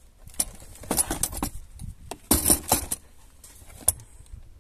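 Handling noise: plastic packaging crinkling and the rotary hammer shifting in its plastic carry case, in two main bursts, with a sharp click about four seconds in.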